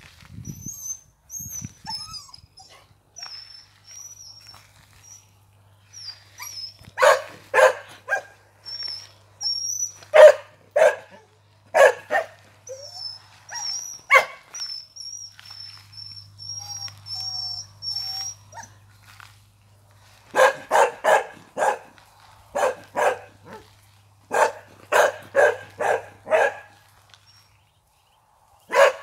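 Ducklings peeping in thin, high, wavering calls, with a dog barking in quick runs of several barks from about seven seconds in; the barks are the loudest sound.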